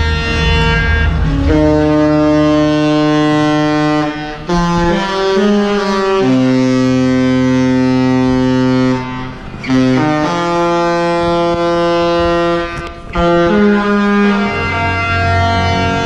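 A cruise ship's musical horn playing a tune in long, held chords of several notes at once, moving from chord to chord, with three short breaks between phrases.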